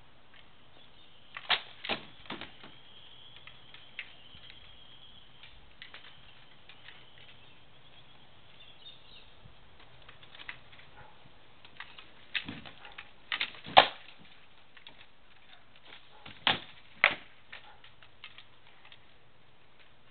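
Sharp knocks of sword blows striking a shield and armour in armoured sparring. They come in short clusters, two or three at a time: a few about two seconds in, a run of them midway with the loudest near the middle, and two more a few seconds later.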